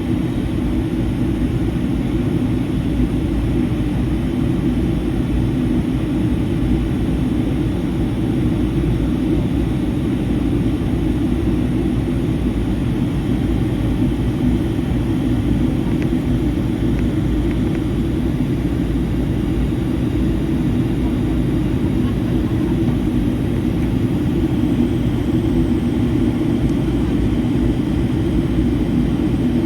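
Steady in-cabin drone of a Boeing 757-300 in flight: its Rolls-Royce RB211 jet engines and the airflow past the fuselage, with an even low hum and no changes.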